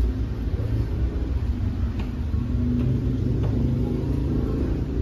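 Steady low rumble of background road traffic, with a few faint taps of small footsteps on stone stairs.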